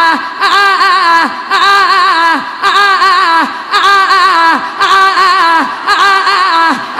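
A woman chanting a Sufi dhikr into a microphone. She repeats one short phrase about once a second, and each repetition ends in a falling glide.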